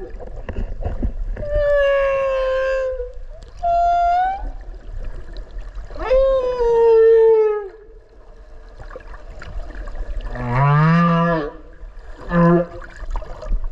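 Humpback whale song heard underwater: a series of about five separate calls, higher drawn-out tones that slide down or briefly rise, then low wavering moans near the end, over a steady low rumble of the sea.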